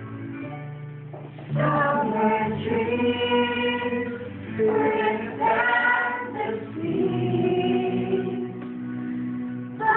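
A group of teenagers singing together in a rehearsal, in phrases of held notes, louder from about one and a half seconds in.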